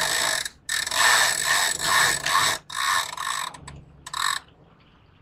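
Sailboat sheet winch clicking on its ratchet pawls as a line is hauled in with a run of about seven quick pulls. The clicking stops about four seconds in.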